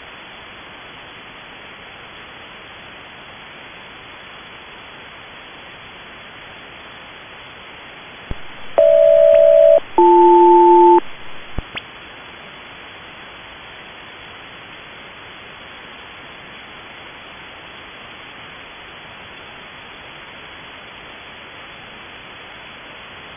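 HF single-sideband radio sending a SELCAL selective-calling tone code, Golf Hotel Bravo Lima, over steady band hiss. About nine seconds in come two one-second pulses of paired steady tones with a brief gap between them: a close mid-pitched pair, then a low and a high tone together. A short click comes just before and after. The code alerts one aircraft's crew to a call from the ground station.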